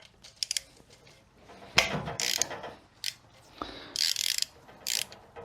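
Hand ratchet clicking in several short spells as the 1/2-inch bolts holding the transmission's front pump are worked loose by hand.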